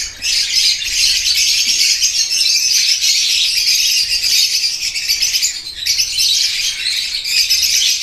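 Many lovebirds chattering and calling at once: a dense, steady, high-pitched din.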